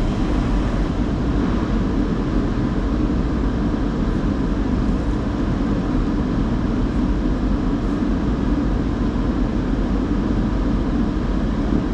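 Steady rushing noise of automatic tunnel car wash equipment, heard from inside the car's cabin.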